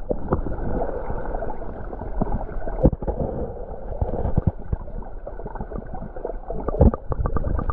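Muffled churning of creek water heard from under the surface, full of small clicks and knocks of gravel and stones shifting as a hand digs in a water-filled bedrock crack. A couple of sharper knocks come about three seconds in and near the end.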